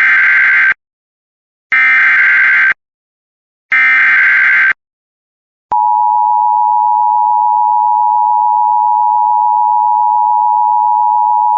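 Emergency Alert System alert opening: three bursts of SAME header data tones, each about a second long with a second's gap between them. About six seconds in, the steady attention tone starts, signalling that a warning message is about to follow.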